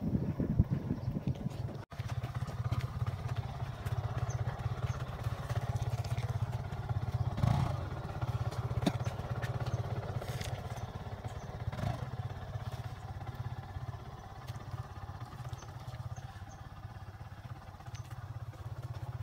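Motorcycle engine running steadily at low revs, with a few light knocks along the way.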